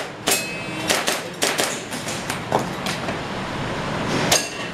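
Airsoft pistol firing about eight sharp shots at an irregular pace, with a longer pause before the last; a couple of the shots are followed by a brief ring.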